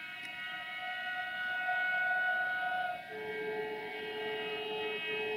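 Multi-tone train air horn sounded in long sustained blasts; about three seconds in the chord drops to lower notes, with a very short break near the end.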